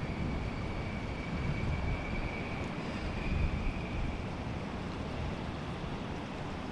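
Wind buffeting the microphone, a steady low rumble, with a faint thin whine over it that fades away about four seconds in.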